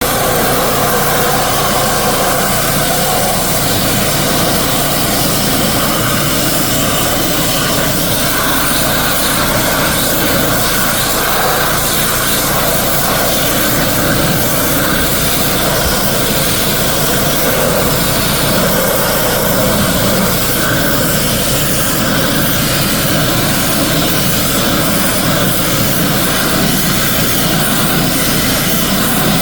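Pressure washer running steadily, its motor droning under the constant hiss of the high-pressure water jet spraying onto a surface.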